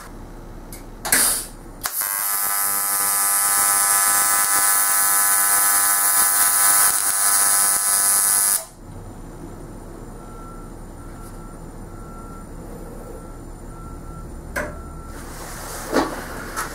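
AC TIG welding arc on aluminum: a loud, steady buzz with a hiss over it. It starts about two seconds in, lasts about six and a half seconds and cuts off sharply. A quieter steady hum remains after it.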